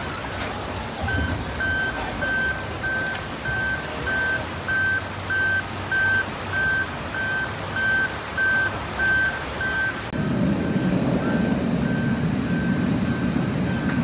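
Backup alarm on heavy earthmoving equipment beeping at a steady pace, a little under two beeps a second. About ten seconds in the beeps grow fainter and a machine engine rumble comes up louder.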